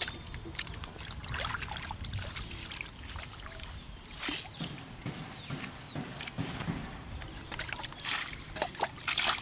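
Bare feet treading in shallow muddy water: irregular squelches and splashes, busier and louder near the end.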